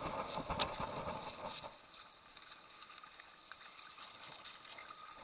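Footsteps and scuffing on a dirt and gravel trail, with knocks close to the microphone, dying down to a faint hiss about two seconds in.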